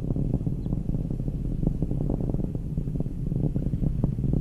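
Atlas V rocket's RD-180 first-stage engine in flight: a steady low rumble with dense, irregular crackling.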